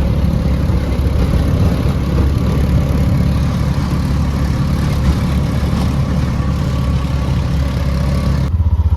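Motor vehicle engine running steadily with road noise. About eight and a half seconds in, the sound changes abruptly to a faster, pulsing engine note.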